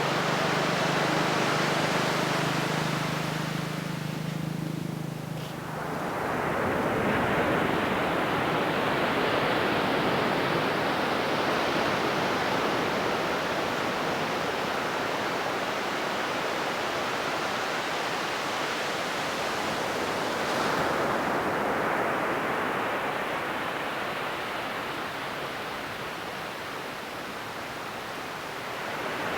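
Ocean surf breaking and washing up the beach, swelling and falling back: a lull about four seconds in, a wave breaking around six seconds in, and another surge about twenty seconds in. A low steady hum sits under the surf for the first six seconds.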